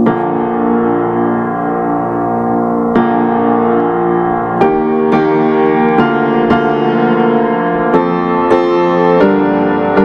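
Background music led by an electric piano or keyboard: held chords, with single notes struck over them from about three seconds in.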